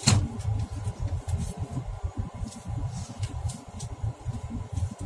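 Low, uneven rumble of a car driving slowly, heard from inside the cabin, with a sharp click right at the start.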